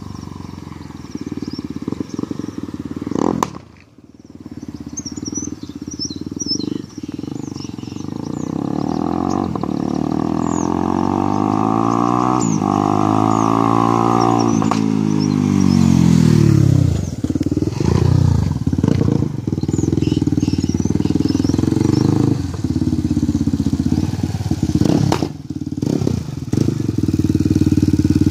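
UM Renegade Sport S 300 motorcycle's single-cylinder engine accelerating toward and past the listener, its exhaust note climbing in pitch and then dropping sharply as it goes by about halfway through. Loud uneven engine running and revving follows.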